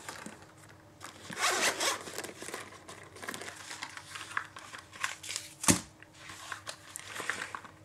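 Zip of a small hard-shell carrying case being pulled open, then the case handled with short rustles and a single sharp knock a little past halfway.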